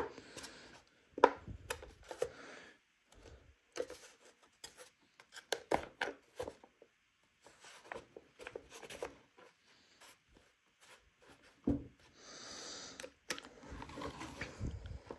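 Handling noise: scattered clicks, knocks and rubbing, with a short quiet spell about ten seconds in.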